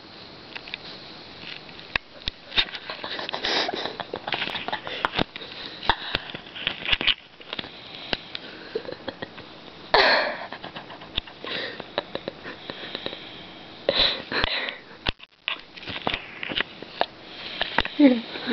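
A woman snoring in her sleep: irregular breathy, nasal snorts a second or several apart, with small clicks between them.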